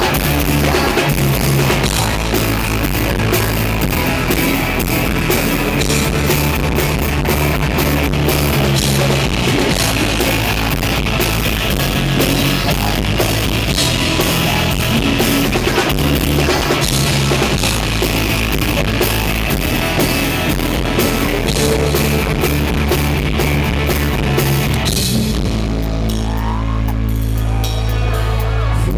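Live rock band playing: drum kit and a Les Paul-style electric guitar at full volume. About 25 seconds in the drums stop and a low chord is left ringing out.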